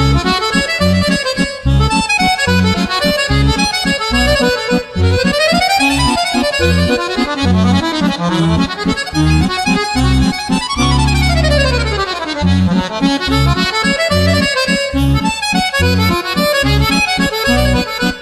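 Background music led by an accordion over a pulsing bass line, with quick runs sweeping up and then down in pitch midway.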